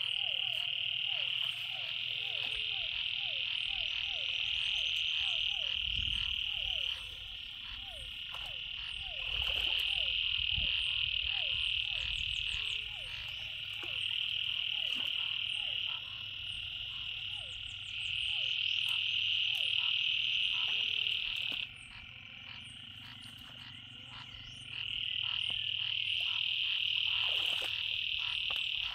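A chorus of frogs calling from flooded ground: long buzzing trills of a few seconds each that start and stop in turn, over a fast run of short falling croaks. A few low splashes of someone wading in the water.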